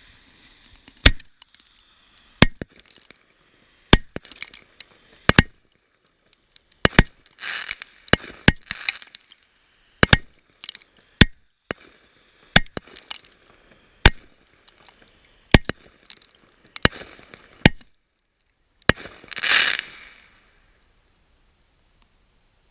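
Fireworks and firecrackers going off: a string of sharp single bangs at irregular intervals, with a couple of short crackling, hissing bursts, one near the end.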